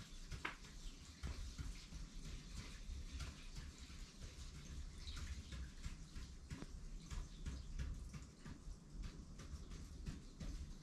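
Quick, irregular taps and scratches of an ink marker striking short tally strokes onto a paper scroll, several a second, faint over a low steady room rumble.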